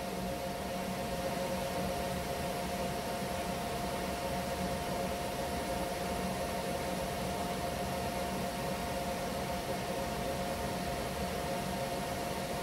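Steady fan hum and hiss with a few faint, unchanging tones running under it; nothing starts or stops.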